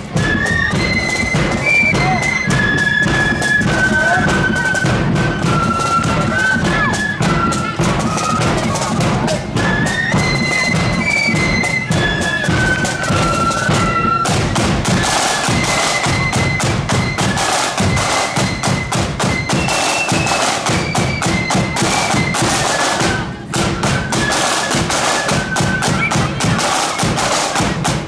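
Marching flute band playing a tune, a high flute melody over bass and side drums beating time. About halfway through the drumming grows denser and fuller.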